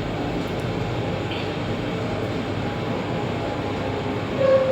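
LG passenger lift car travelling up the shaft, heard from inside the cabin: a steady rushing rumble. A steady tone starts just before the end.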